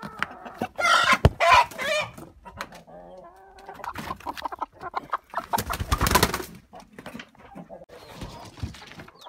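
Chickens clucking, with a loud outburst about a second in and another loud noisy burst around six seconds in.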